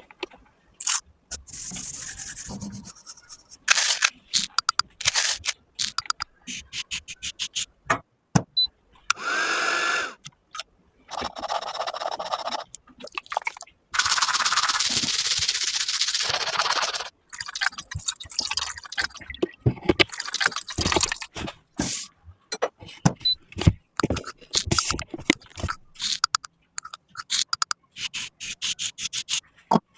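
Makeup being repaired and handled: a busy run of small clicks, taps and scrapes of cosmetics and tools, broken by several stretches of even hiss lasting one to three seconds.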